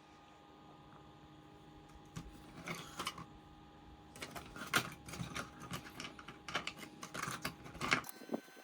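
Irregular plastic clicks and taps as the back panel of an ASUS TUF Gaming A16 laptop is worked off, a few at first and many in quick succession from about four seconds in.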